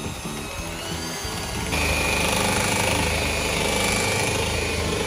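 Electric hand mixer running, its beaters whipping cream cheese and condensed milk in a bowl. About two seconds in it gets louder, with a steady high whine over the motor noise.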